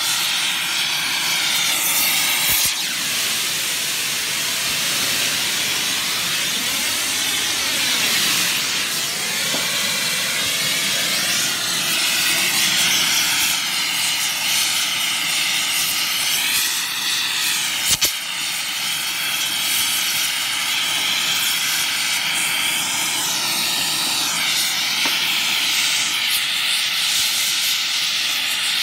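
Oxy-fuel torch flame hissing steadily as it heats rusted bolts on a disc mower's cutter bar to free them. Two brief sharp clicks break it, one about three seconds in and one just past halfway.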